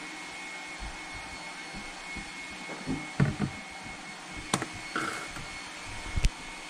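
Kitchen handling sounds: a plastic creamer bottle is poured into a stainless steel tumbler of coffee, then knocks and clicks against the counter as it is moved and set down, over a steady hiss with a faint high tone.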